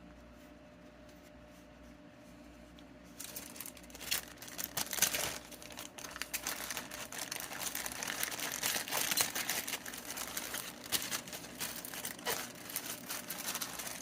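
Plastic bag crinkling and rustling as it is handled, starting about three seconds in and going on continuously.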